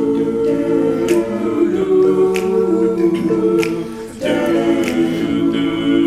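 All-male a cappella group singing wordless backing chords, holding each chord and then moving to the next, with a sharp click on the beat a little more than once a second.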